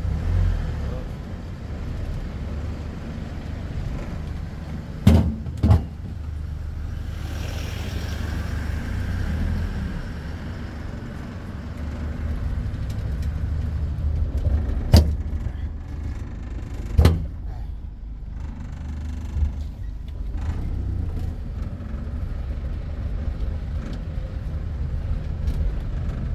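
Tuk-tuk running steadily on the road, a low engine rumble from inside the open cab, broken by a few sharp knocks: two close together about five seconds in and two more a little past the middle.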